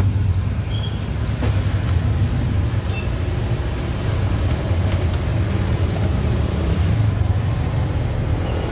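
Steady low rumble of road traffic, with a couple of faint clicks in the first few seconds.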